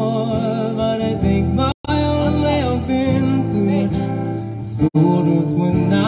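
A man singing a slow love song live to his own acoustic guitar, amplified through a microphone and PA speaker, his held notes wavering. The sound cuts out completely for an instant twice, about two seconds in and near five seconds.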